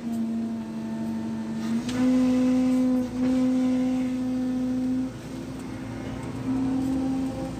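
Excavator engine and hydraulics running under load, heard from inside the operator's cab: a steady whine that steps up in pitch and loudness about two seconds in as the bucket is worked, drops back about five seconds in, and rises again near the end.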